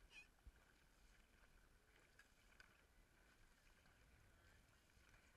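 Faint paddling of a dragon boat crew: water noise with a few soft, irregular splashes and knocks of paddles.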